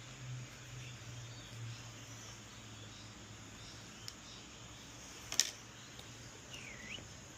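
Quiet handling sounds as a foot is worked into a tight sneaker: a sharp click about five seconds in and a brief squeak near the end, over a low steady hum.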